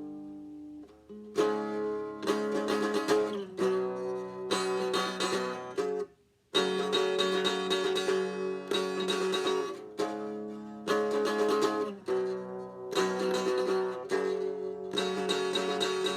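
Guitar strummed in a steady repeating chord pattern, the chords ringing between strokes. About six seconds in it stops for half a second, then carries on.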